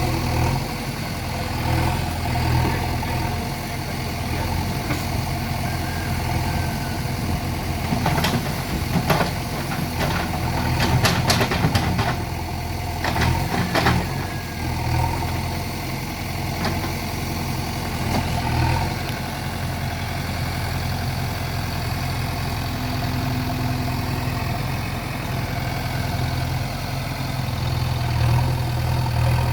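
JCB 3DX backhoe loader's diesel engine running steadily at a low drone, with a run of sharp knocks and clanks between about eight and fourteen seconds in.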